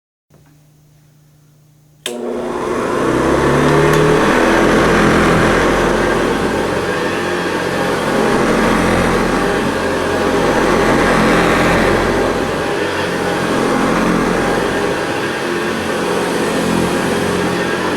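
Hoover Convertible Model 1030 upright vacuum cleaner switched on about two seconds in, its motor spinning up and then running steadily and loudly, the sound slowly swelling and easing.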